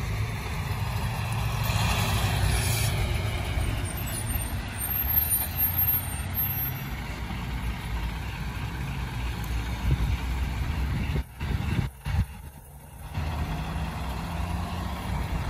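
Peterbilt 579 semi truck's diesel engine running with a steady low rumble as the tractor-trailer drives slowly past.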